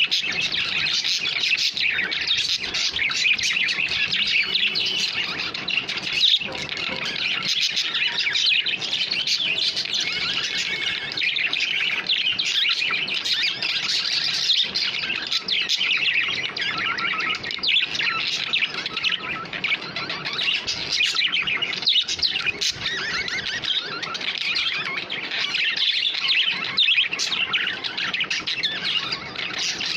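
Pet budgerigars chattering and warbling in a continuous, busy stream of fast high chirps.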